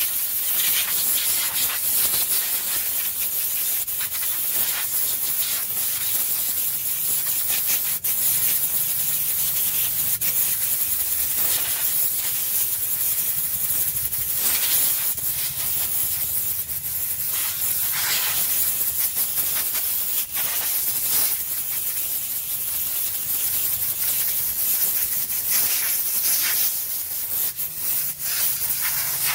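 Compressed-air blow gun hissing steadily as it is run over a cylindrical paper air filter element, blowing the dust out, with short louder blasts now and then.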